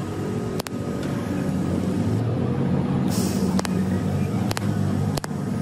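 TIG welding a broken steel padlock shackle: a steady low hum with a few sharp clicks and a short hiss about three seconds in.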